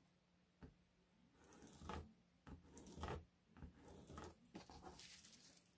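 Faint rustling and scraping of pattern paper as a clear plastic curved ruler is flipped over and slid on it, with a pencil drawing along the ruler's edge. The sounds come as a few short, irregular strokes, starting about a second and a half in.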